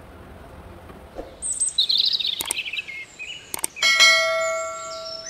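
Subscribe-button outro sound effects. A quick flourish of high sparkling chimes, two sharp mouse-style clicks, then a bell ding that rings out and slowly fades.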